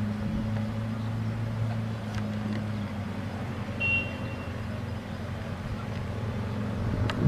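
An engine idling, a low steady hum, with a brief high chirp about four seconds in.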